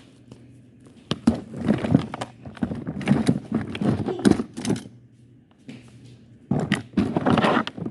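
A plastic container of small squishy toys being handled while its lid is forced back on: scraping, rustling and clicking knocks in two bouts, with a short lull between.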